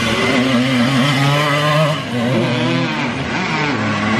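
Small motocross bike engines revving hard and easing off as riders race on a dirt track, more than one engine at once, their pitch rising and falling.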